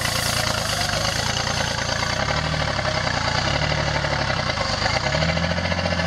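Off-road 4x4's engine running under load, its pitch rising and falling back in slow swells while the vehicle is winched up a steep muddy climb.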